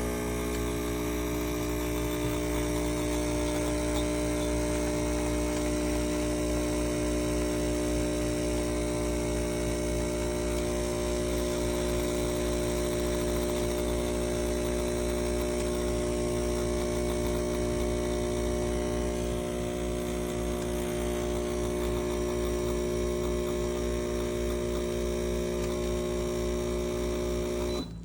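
Espresso machine's pump running with a steady electric hum, which cuts off abruptly at the end.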